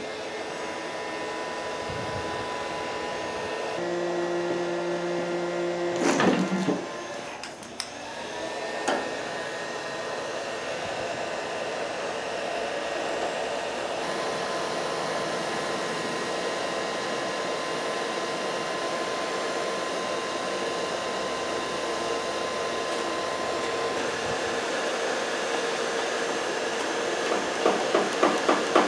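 Electric heat gun blowing steadily, used to soften the adhesive behind a fender emblem. Its whir dips briefly and spins back up about seven seconds in. Near the end comes a quick run of scraping clicks as a putty knife pries at the emblem.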